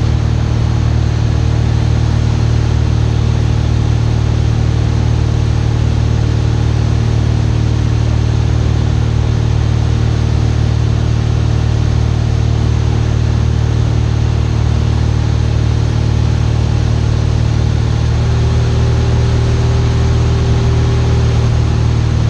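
Cessna 172 Skyhawk's piston engine and propeller droning steadily in flight, heard inside the cabin. A faint steady tone joins the drone for a few seconds near the end.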